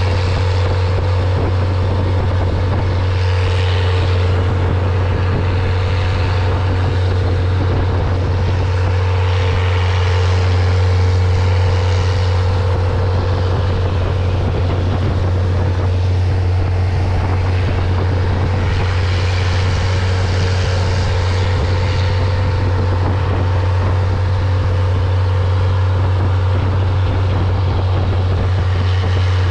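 Engine of a narrow wooden river longboat running steadily at speed, a constant low drone, with the hiss of water rushing past the hull.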